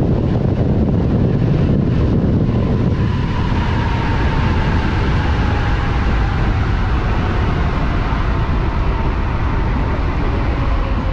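High-power electric motorcycle at highway speed: wind rushing over the microphone and tyre roar, with a thin electric-drive whine that falls steadily in pitch from about three seconds in as the bike slows under regenerative braking.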